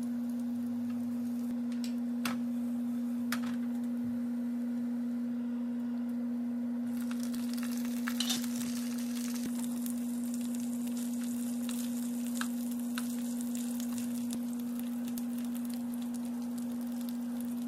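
A steady, even hum, one pure low tone with a faint higher overtone, runs throughout. Under it, oil sizzles gently in a non-stick frying pan of garlic and green chilli. About seven seconds in, the sizzle grows louder and brighter as canned sardines go into the pan, with a few clicks.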